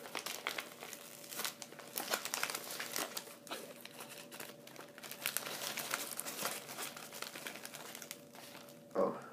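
Plastic poly mailer bag crinkling and crumpling as it is handled, with dense irregular crackles throughout.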